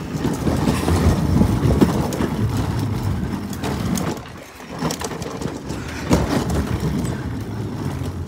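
Hard plastic wheels of a child's ride-on toy car rolling and rattling over rough ground, a steady rumble broken by irregular knocks and bumps, louder in the first half.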